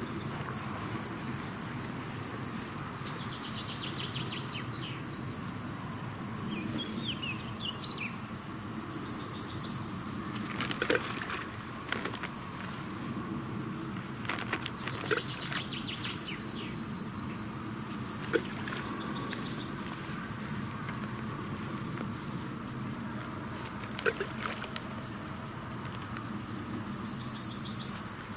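Insects chirping: a steady high shrill with short rhythmic chirp phrases every few seconds. About five short, sharp plops are spread through it, boilies thrown by hand landing in the river.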